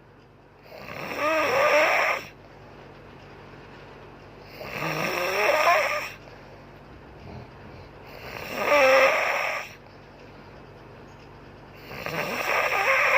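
A woman snoring loudly in a steady sleep rhythm. There are four long rasping snores, each about a second and a half, coming roughly every four seconds with quieter breathing gaps between them.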